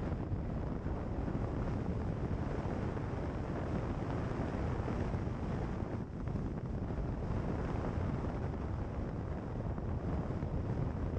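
Wind rumbling over the microphone of a bonnet-mounted camera, mixed with the tyre and road noise of a car driving along a gravel road. It is a steady noise with no clear engine note.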